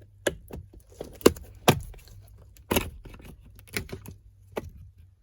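Hand work on a car's plastic steering-wheel trim: a run of sharp, irregular clicks and knocks as the trim panel and screwdriver are handled, the loudest two knocks about a second and a half in.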